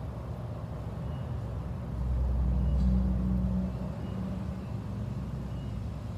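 Low, steady vehicle rumble that swells louder for about two seconds in the middle, then settles back.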